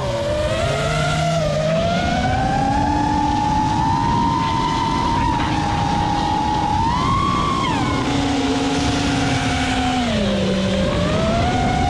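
FPV quadcopter's brushless motors whining, the pitch sliding up and down with the throttle, over wind rush. The pitch climbs about seven seconds in and drops back near the end.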